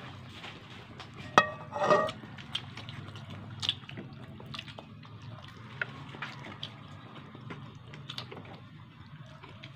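Wet mouth sounds of eating sauce-coated chicken feet adobo with rice by hand: many small smacks and sucking clicks. Two short, louder pitched sounds come about a second and a half and two seconds in.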